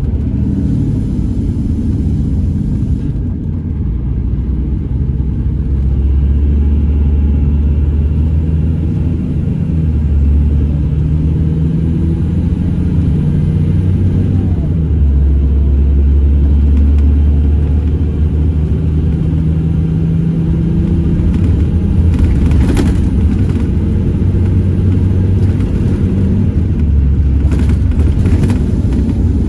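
Scania Irizar Intercentury 12.32 bus heard from inside the cabin on the move: a steady low engine drone with road rumble, its note shifting a few times as the bus changes speed. A brief knock sounds about two-thirds of the way through.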